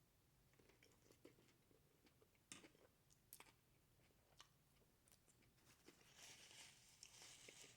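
Faint chewing and mouth clicks while eating, with a soft crunchy rustle for the last second and a half or so.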